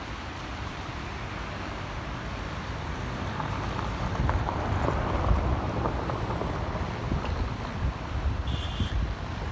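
Road traffic: a motor vehicle passes, growing louder about halfway through and then easing off, over a steady rumble of wind on the microphone.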